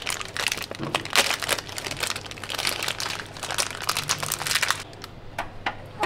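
Plastic packaging crinkling and rustling as an item is unwrapped, a dense run of crackles, then a few separate sharp clicks near the end.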